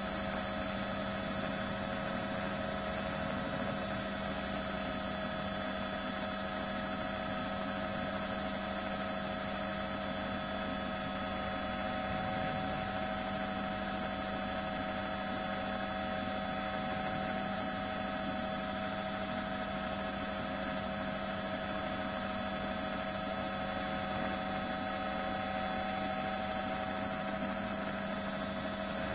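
News helicopter's engine and rotor running steadily in flight, a constant drone with several steady humming tones.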